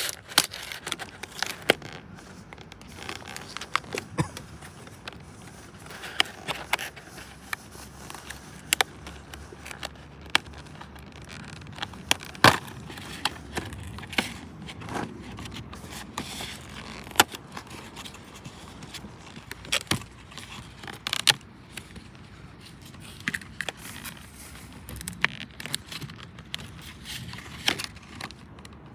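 Objects being handled and set down: irregular clinks, knocks and scrapes, some of them sharp and loud, over a steady low rustling.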